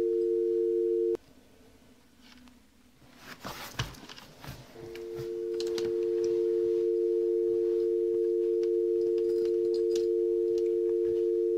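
Telephone dial tone, a steady two-note hum. It cuts off suddenly about a second in, a few faint clicks and knocks follow, and about five seconds in the tone fades back up and holds steady.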